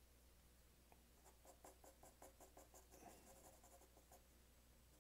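A 4B graphite pencil scratching faintly on drawing paper in quick, short shading strokes, several a second, starting about a second in.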